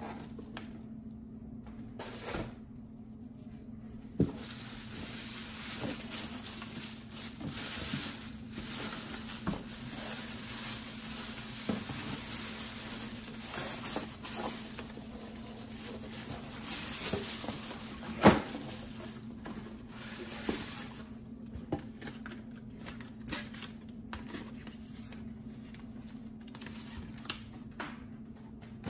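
Unboxing noise: a plastic bag rustling and crinkling around an air fryer while a styrofoam insert and the cardboard box are handled. Scattered knocks include one sharp knock about 18 seconds in, over a steady low hum.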